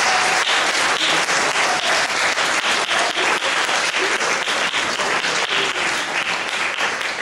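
Theatre audience applauding, steady and loud.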